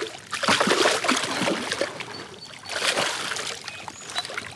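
Hooked largemouth bass thrashing at the water's surface beside a kayak, splashing in irregular bursts, with another burst of splashing around three seconds in as it is scooped into a landing net.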